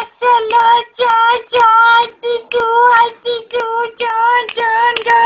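A high voice singing a chant-like tune: about ten short syllables held on nearly the same note, about two a second.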